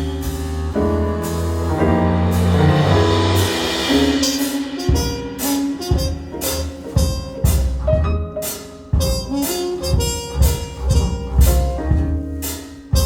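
Recorded music played back over a high-end Audio Research and Wilson Audio demo system: a drum kit striking a steady beat under bass notes and held pitched tones, with a cymbal swell a few seconds in.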